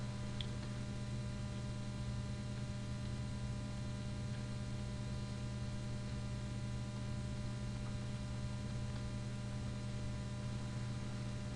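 Steady electrical mains hum with hiss: a low buzz with many even overtones picked up by the recording setup.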